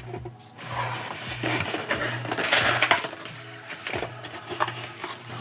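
A mailed package being torn open and unwrapped: irregular rustling, crinkling and tearing of paper and plastic with small clicks, densest about halfway through, over background music.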